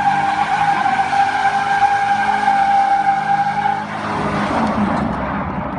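Vehicle tyres squealing steadily over the engine running under load; the squeal stops about four seconds in, leaving the engine and a rough rushing noise.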